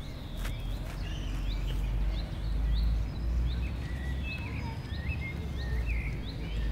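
Outdoor park ambience: small songbirds chirping in short, repeated calls with some warbling, over a steady low rumble.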